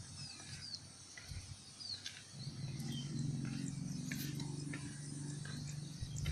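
A few short, high bird chirps. Then, from about two and a half seconds in, a steady low engine hum joins in for a few seconds.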